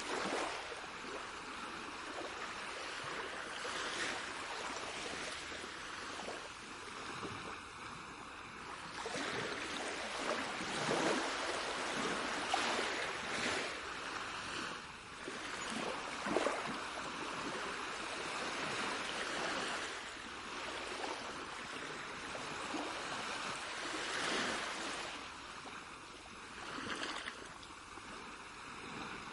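Continuous rushing, splashing water that swells and eases every few seconds.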